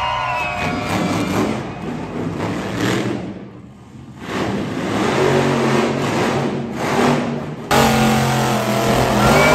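Monster truck engine revving and running, its sound dropping away briefly a little over a third of the way in, then coming back steadier, with a sudden jump in level near the end.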